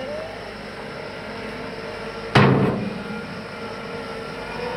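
Wheel loader engine running steadily, with one loud bang a little over two seconds in that dies away quickly.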